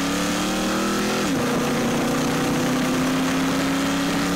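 Car engine accelerating. Its pitch climbs steadily, drops sharply at a gear change a little over a second in, then climbs again.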